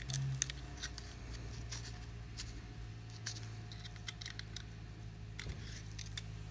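Small metallic clicks and scrapes as a flat pry tool works under the gasket between a power steering pump's cover and its housing, lifting the gasket away. A steady low hum runs underneath.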